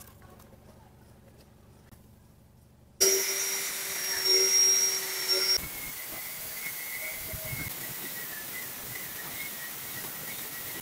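After a quiet start, an angle grinder with a thin cut-off disc cuts into a flat steel knife blank, starting abruptly about three seconds in with a loud hiss and a high steady whine. About two and a half seconds later it drops to a quieter, steady hiss with a fainter whine.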